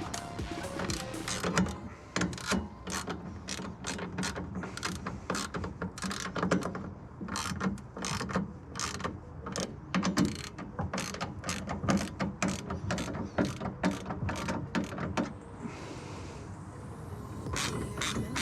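Hand ratchet wrench clicking in quick back-and-forth strokes as it snugs a bolt on a steel bed-rack bracket. The clicking pauses for about two seconds near the end, then starts again.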